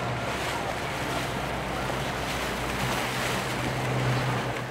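Motorboat engine running with water rushing and splashing around the hull, wind buffeting the microphone.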